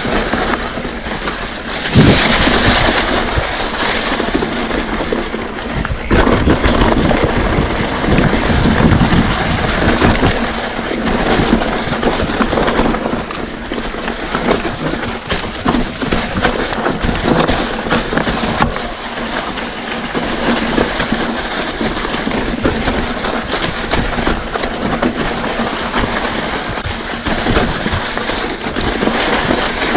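Mountain bike descending a rough dirt singletrack: a steady rush of tyre and trail noise broken by many knocks and rattles as the bike jolts over roots and rocks, with a hard jolt about two seconds in.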